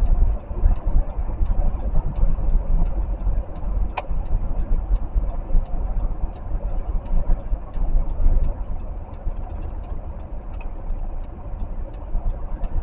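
Low road and engine rumble inside a moving car, with a light, even ticking about two and a half times a second and one sharp click about four seconds in.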